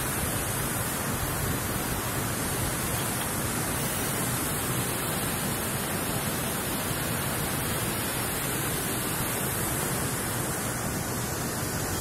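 Steady, even rush of a tall waterfall plunging over a cliff into a pool.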